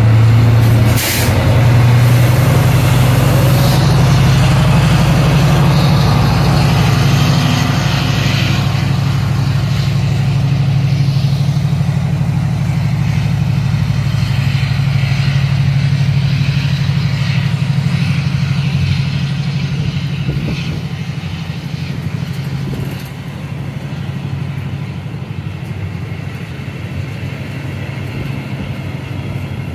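Diesel train engine running loud and steady at a low pitch, with a brief hiss about a second in; it eases off over the last several seconds.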